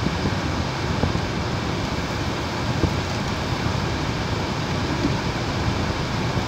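Steady driving noise heard from inside a car's cabin: the engine running and the tyres rumbling over a cobblestone street at low speed.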